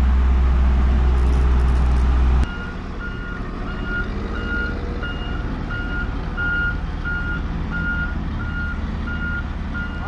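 Road rollers at work: a loud, steady low drone from a roller close by, which stops abruptly about two and a half seconds in. From then on a roller's reversing alarm beeps steadily, about twice a second, over the sound of its engine running.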